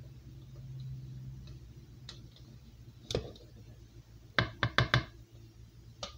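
Sharp knocks of a kitchen utensil against the rim of a stainless steel mixing bowl: one about three seconds in, then four quick knocks a little over a second later, and one more near the end. A low hum sits under the first second or so.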